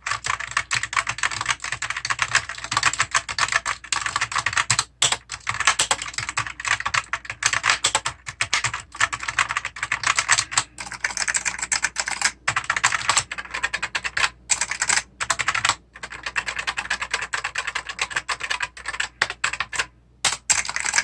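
Fast typing on an Electroman gaming mechanical keyboard with Outemu blue clicky switches: a dense run of sharp key clicks, broken by a few brief pauses.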